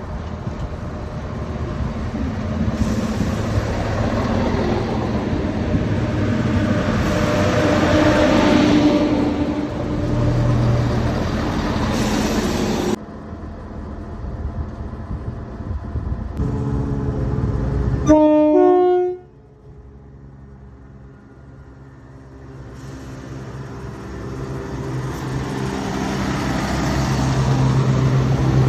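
Northern diesel passenger train running past with a loud rail rumble, which cuts off abruptly partway through. About two-thirds of the way in, the train horn sounds briefly and stops sharply. The rumble of a train engine then builds again toward the end.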